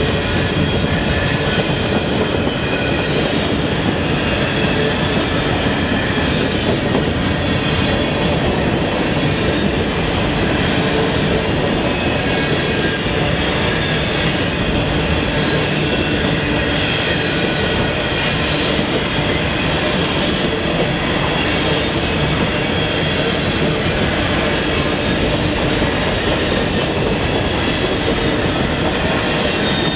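Freight train's covered hopper cars rolling past at close range: a steady rumble of steel wheels on rail, with a clicking of wheels over the track and a faint high wheel squeal.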